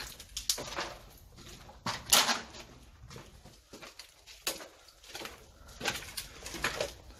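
Footsteps crunching on a debris-strewn floor: a handful of slow, irregular steps, the loudest about two seconds in.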